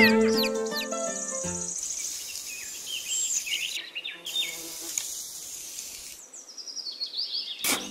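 Insects buzzing in a steady, high, rapidly pulsing drone, with a few short bird chirps. Background music fades out about a second and a half in, and a sharp click near the end brings the music back in.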